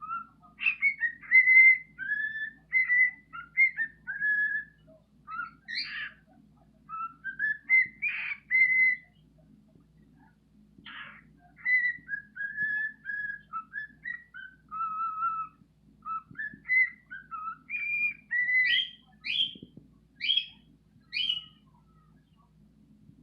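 Male cockatiel singing its whistled song: a long series of clear whistled notes and short phrases with pauses, ending in a few quick rising chirps.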